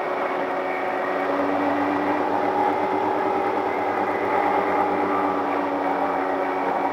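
Twin electric motors and propellers of a radio-controlled plane in flight, heard from its onboard camera: a steady whine with a slight waver in pitch.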